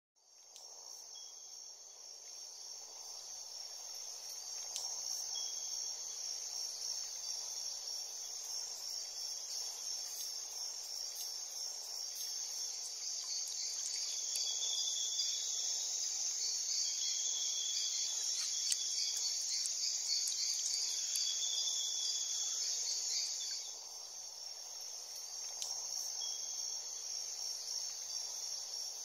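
Crickets and other night insects chirping in a dense, steady high trill, fading in over the first few seconds, with a faint even hiss of background noise beneath.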